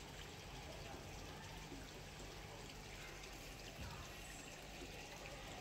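Faint, steady trickle of water running into koi ponds.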